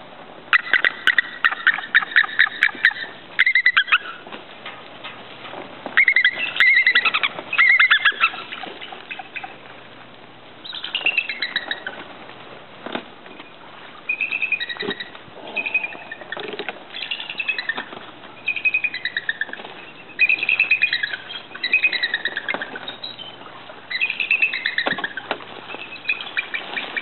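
Bald eagles calling: repeated runs of rapid, high piping notes, each run lasting a second or two, one after another with short pauses between them.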